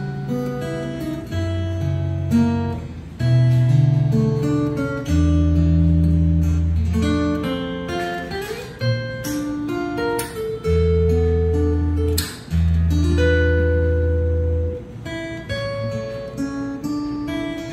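Solo fingerstyle acoustic guitar: plucked melody notes over held low bass notes, with sharp plucked attacks throughout.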